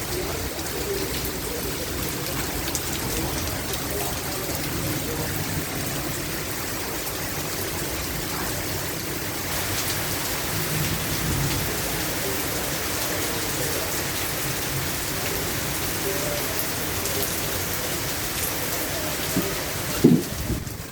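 Steady rain falling, a continuous even hiss of water. There is a short knock near the end.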